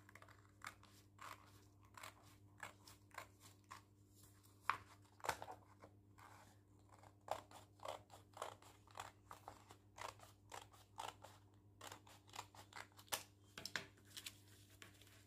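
Scissors cutting along a line through coloured A4 paper: a long series of short, crisp snips, about one to two a second.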